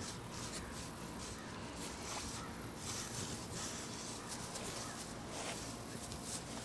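Raspy, hissing strokes of a metal loop shedding blade raked through a dog's thick coat, pulling out loose shed undercoat, repeated at an uneven pace.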